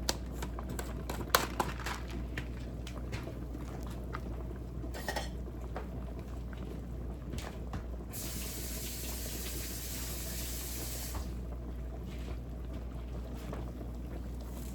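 Pot of seafood soup bubbling at the boil, with a few sharp clicks in the first couple of seconds and a stretch of hiss about eight seconds in that lasts some three seconds.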